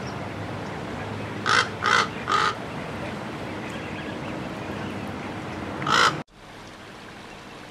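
Common raven calling: three short hoarse caws in quick succession, then a fourth a few seconds later.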